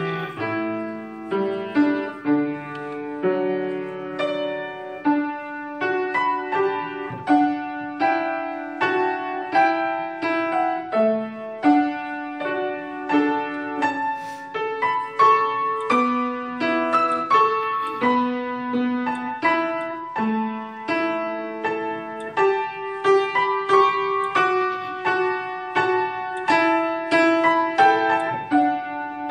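Upright acoustic piano played solo: chords under a melody line, in a steady stream of struck notes.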